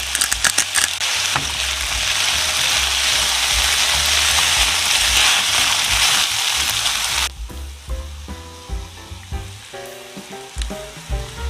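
Macaroni and diced chicken sizzling in a hot nonstick frying pan while a spatula stirs them, with a few sharp ticks near the start. The sizzle cuts off suddenly about seven seconds in, leaving background music with a beat.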